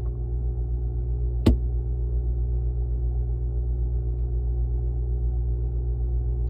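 Refrigerator running with a steady low hum, and one sharp click about a second and a half in.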